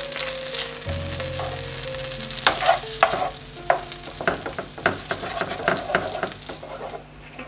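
Butter melting and sizzling in a nonstick frying pan with anchovy fillets and chili, stirred with a wooden spoon. From about two and a half seconds in, the spoon scrapes and taps against the pan.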